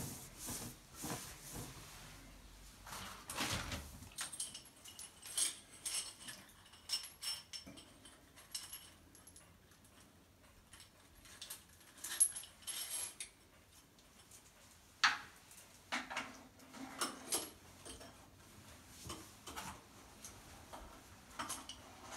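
A towel rubbing over a ceramic washbasin for the first few seconds, then scattered light clicks, clinks and rattles as a new faucet's metal supply hoses are handled and fed through the basin's tap hole.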